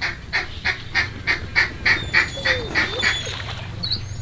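A rapid series of about ten duck quacks, evenly spaced at roughly three a second and stopping about three seconds in, in the pattern of a mallard greeting call. Faint thin whistles follow near the end, over a steady low hum.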